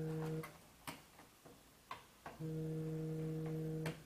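Cordless electric screwdriver motor running in two steady runs of about a second and a half each, driving a screw, with small clicks of screws and plastic parts between the runs.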